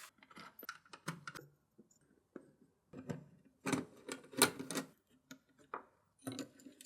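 Irregular small clicks, taps and knocks of PC parts and hardware being handled, in clusters with a short quiet gap about a second and a half in.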